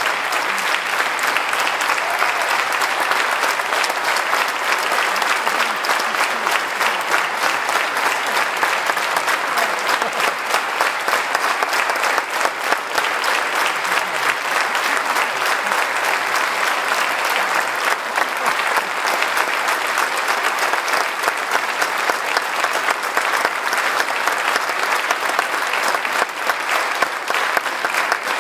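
Large audience applauding, a dense, steady clapping of many hands.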